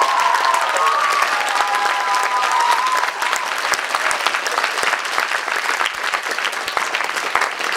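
Audience applauding, dense and steady, with a few voices calling out over it during the first three seconds.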